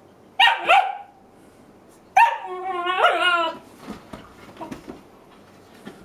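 Dog barking in play: two short barks about half a second in, then a longer wavering bark-howl about two seconds in, followed by faint scuffling as the dogs wrestle on the couch.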